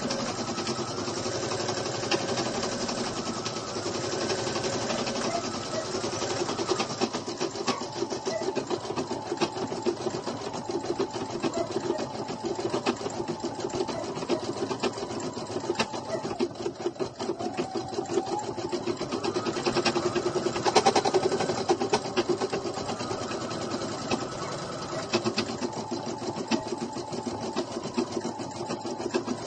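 Computerized embroidery machine stitching a fill design through toilet paper in its hoop: a rapid, even run of needle strokes over the hum of its motor.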